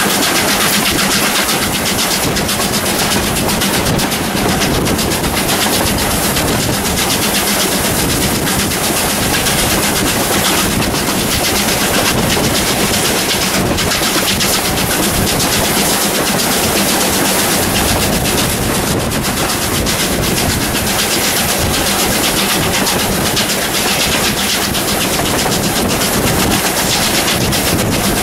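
Steam train hauled by South Australian Railways 620-class Pacific locomotive 621 running up a grade, a loud, steady mix of locomotive and rolling wheel-on-rail noise.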